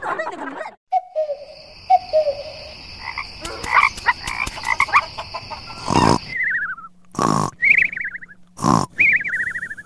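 Comic croaking sound effects. Four times, a short rasping burst is followed by a falling, warbling chirp. Before these, in the first half, a steady high whine runs with scattered clicks.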